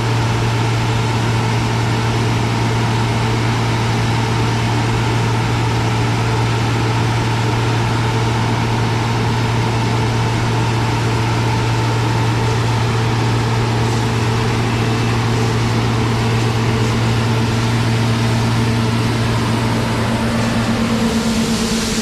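Heavy diesel harvest machinery running steadily: a constant low engine drone with a higher hum above it. Near the end the low drone drops away and a rushing hiss rises.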